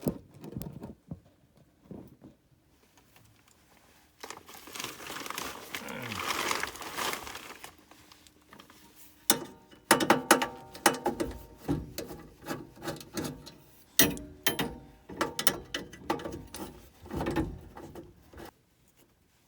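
Tools and sheet-metal burner parts of a gas furnace being handled as the burner assembly is taken apart: a few seconds of soft rustling, then a long run of clicks, clinks and knocks with a little metallic ringing.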